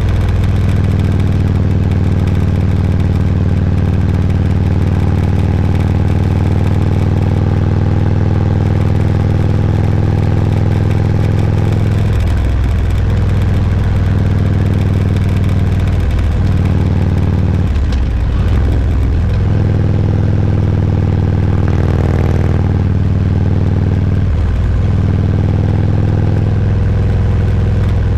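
Motorcycle engine running steadily at road speed while riding, its note dipping briefly a few times.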